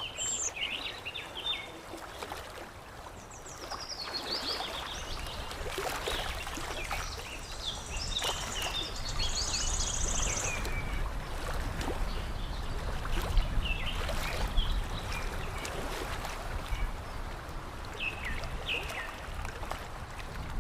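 Water lapping and trickling with small splashes, while small birds chirp in short bursts above it, including a high buzzy trill about halfway through.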